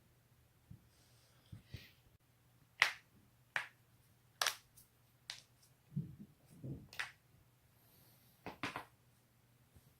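Joints being cracked: several sharp, separate pops, the first about three seconds in, with a couple of low dull thumps in the middle.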